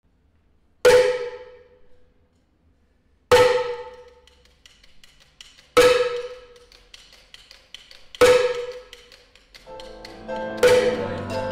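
Title music: a single struck note rings and fades, repeated five times about every two and a half seconds. Near the end other instruments come in with sustained notes underneath.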